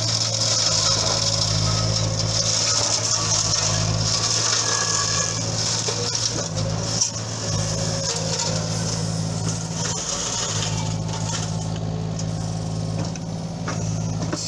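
JCB 8035 ZTS mini excavator's diesel engine running steadily under load, driving a hydraulic flail mulcher head that shreds small trees and brush. The high shredding noise is strong for about the first ten seconds and then eases.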